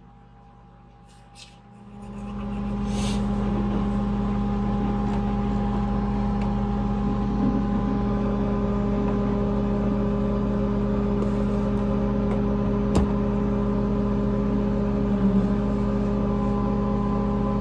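An electric appliance motor is switched on with a click, spins up over about a second, then runs steadily with a constant hum and whir.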